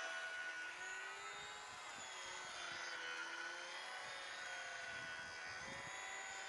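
Small RC model plane's electric motor and propeller buzzing in flight, faint, its pitch drifting slowly up and down as the plane flies about.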